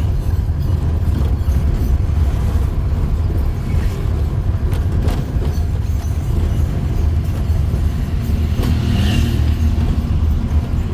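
Engine and road noise of a small van heard from inside its cab while it drives slowly along a street, a steady low rumble.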